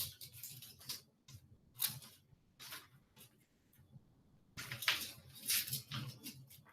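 Twigs and sticks crackling and rustling as they are bent and handled, in scattered short bursts, busiest from about four and a half to six seconds in.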